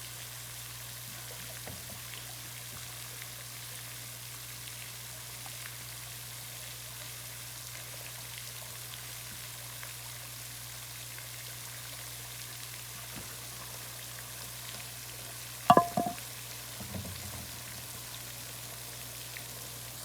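Steady hiss of sprinkler spray pattering onto the pond water. About 16 s in, a brief sharp squeak with a pitched ring is the loudest sound, followed by a softer low knock.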